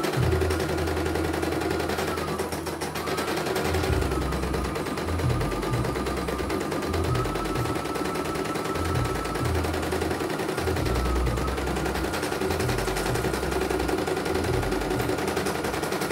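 CNY domestic embroidery machine stitching a design: rapid needle clatter over a motor whine that steps up and down in pitch several times and breaks off briefly a few seconds in, with a low hum that starts and stops as the hoop is moved. It runs smoothly, without hitches.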